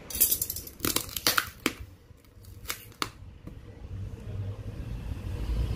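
Hands handling and cutting at a cardboard box wrapped in clear plastic packing tape: about six sharp crackles and snaps over the first three seconds, then a low rumbling handling noise.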